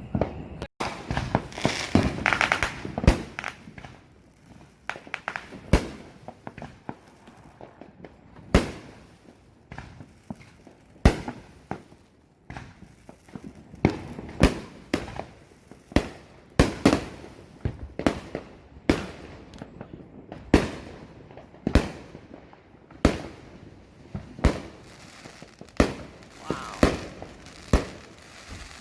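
Fireworks exploding: dozens of sharp bangs at irregular intervals, each followed by a short echo, with stretches of rapid crackling near the start and near the end.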